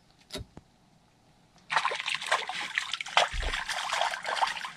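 A hooked perch splashing and thrashing at the surface beside the boat as it is brought to the landing net. The splashing starts suddenly after a quiet first second and a half, and a dull knock comes partway through.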